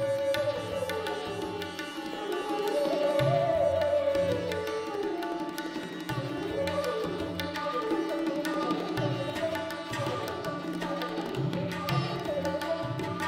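Sitar playing a melody in Raga Madhuvanti with sliding pitch bends, accompanied by tabla with deep bass-drum strokes.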